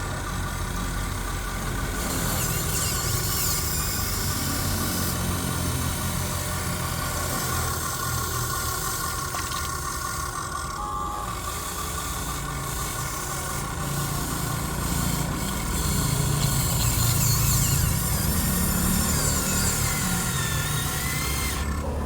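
Huina 1580 RC excavator's electric motors and gearboxes whining steadily as the model works, with rising and falling whines as its functions start and stop, a little louder about two thirds of the way through.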